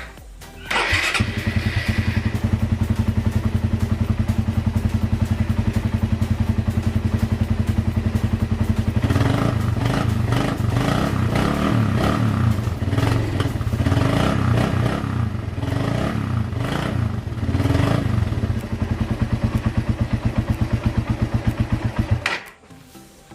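Suzuki Raider 150 single-cylinder four-stroke engine with a Daeng big elbow exhaust header and the stock muffler. It starts about a second in and idles, then is revved repeatedly before it settles back to idle and is switched off near the end. When revved the exhaust has a leaky 'sungaw' tone, said to be usual with a big elbow, and a 'hagok' that the owner puts down, with some doubt, to the catalytic converter left in the stock muffler.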